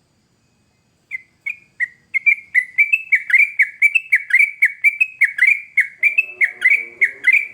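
Yellow-vented bulbul (trucukan) singing: after a second of quiet, a fast, loud run of short, clear down-slurred notes, about three to four a second.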